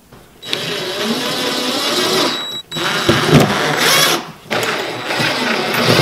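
Cordless drill running in three bursts of about two seconds each with short pauses between, driving screws into the acrylic-covered wooden frame.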